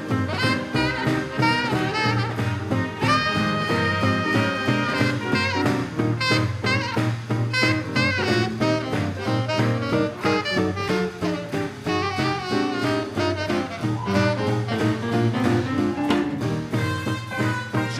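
Live small swing band playing an instrumental passage: saxophone and brass lines over upright bass and rhythm guitar, with a steady swing beat.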